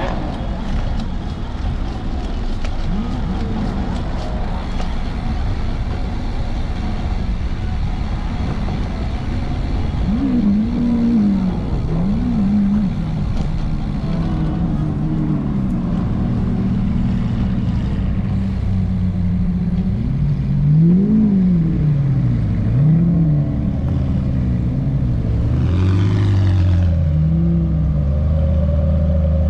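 Sports car engines blipping the throttle over and over, each rev rising and falling quickly in pitch, over the steady hum of other engines. Near the end a McLaren 720S's twin-turbo V8 idles close by with a low, steady note.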